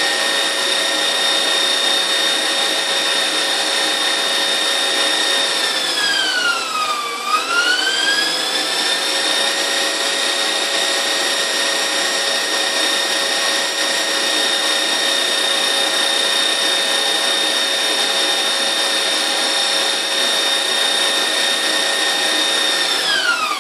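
KitchenAid 6-quart bowl-lift stand mixer running at full speed, whisking egg whites into meringue: a steady high motor whine. About seven seconds in the pitch dips briefly and comes back. Near the end the pitch falls away as the mixer winds down.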